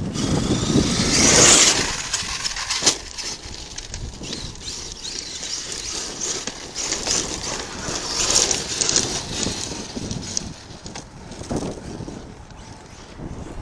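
ARRMA Kraton 8S RC truck's brushless electric motor whining as it drives over dirt, in on-and-off surges of throttle, loudest about a second in. A sharp knock comes near three seconds in.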